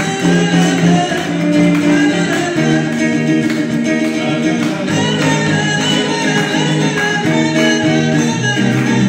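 A woman singing a gospel worship song into a microphone with held, gliding notes, accompanied by electric guitar.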